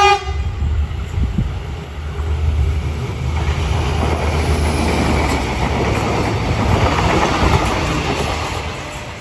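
Passenger multiple-unit train passing close by on a curved track: low rumble of the wheels on the rails, with the running noise building from about three seconds in, loudest in the middle and easing near the end. A short pitched tone sounds right at the start.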